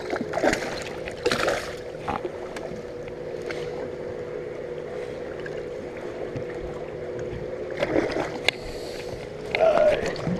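A hooked fish splashing at the side of a boat as it is grabbed by hand, with splashes in the first two seconds and again near the end. Under it runs a steady hum from the boat.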